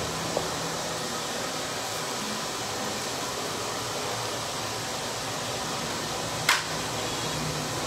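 Handheld hair dryer blowing steadily, with one short sharp click near the end.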